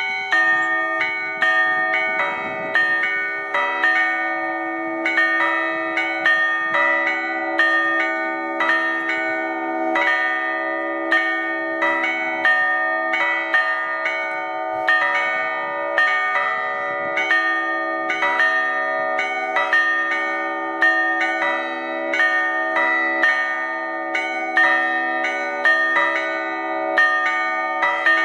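A set of 1891 church bells ringing in their tower: bells of several different pitches struck one after another in quick succession, each strike ringing on and overlapping the next.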